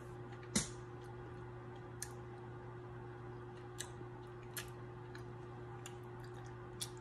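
Faint, sticky clicks of a mouthful of honeycomb beeswax being chewed, a handful of scattered clicks with the loudest about half a second in, over a steady low hum.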